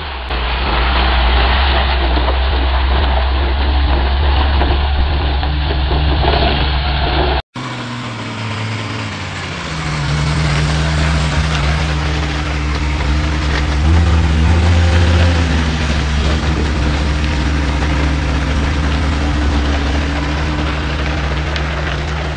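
Diesel engines of loaded logging trucks running at low speed. About seven and a half seconds in the sound drops out for an instant and a second truck's engine takes over, running steadily with a slight rise in pitch around a third of the way through.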